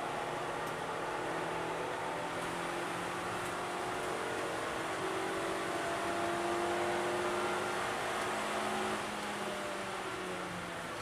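Suzuki Swift Sport's four-cylinder engine, heard from inside the cabin, pulling under load at speed with its pitch rising slowly, then easing off about nine seconds in. Steady wind and tyre noise runs underneath.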